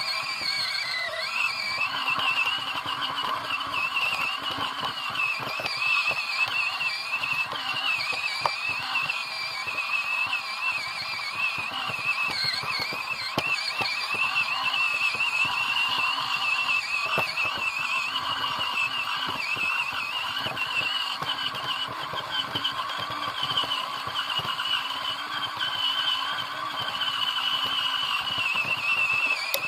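RC car driving, its motor a high whine that wavers up and down with the throttle, over a constant crackling rattle from the chassis and tyres on the ground.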